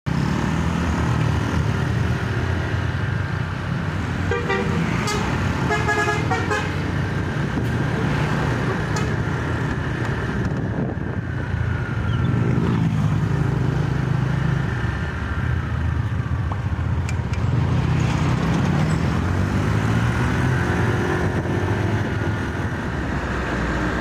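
Basuri telolet bus horn playing a short rhythmic multi-note tune about four seconds in, over the steady rumble of bus and truck engines and road traffic. Large vehicles pass twice more later, their engine sound rising and falling in pitch as they go by.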